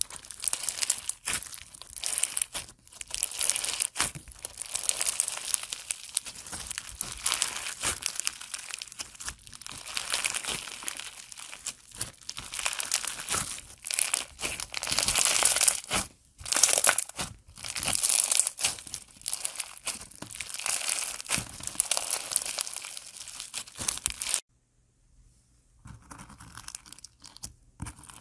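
Foam-bead slime (floam) squeezed and stretched by hand, giving dense crinkling crackles and pops from the packed beads. Near the end it cuts to quieter, scattered crunchy clicks as fingers press clear slime into coarse blue granules.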